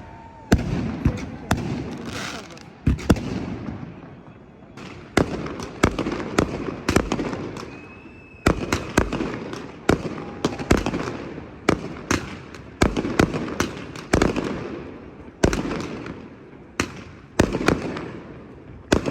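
Fireworks exploding overhead in a continuous barrage: sharp bangs, one or two a second, each followed by a rolling echo.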